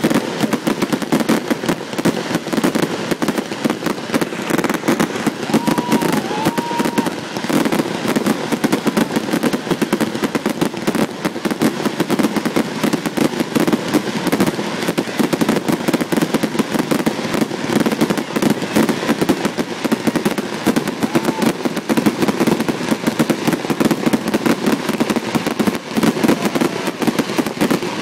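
Fireworks display: a dense, continuous barrage of rapid bangs and crackling from shells and comets fired in quick succession.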